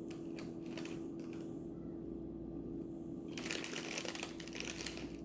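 Close-up handling noise: a few light clicks, then a dense burst of crackling and rustling over the last two seconds, over a steady low hum.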